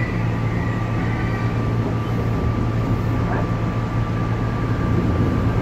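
Interior noise of a UP Express diesel multiple-unit train running along the line: a steady low rumble with a thin, steady whine over it.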